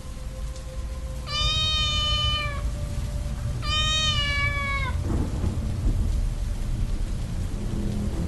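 A cat meows twice, each meow long and drawn out and dropping slightly at the end. Underneath, heavy rain falls with a low rumble of thunder.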